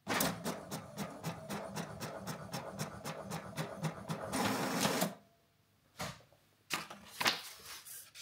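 HP inkjet printer printing a postal shipping label: the print head shuttles back and forth with a rapid, even clatter of about five strokes a second for about four seconds, ending in a longer rush as the sheet feeds out. A few separate clicks follow near the end.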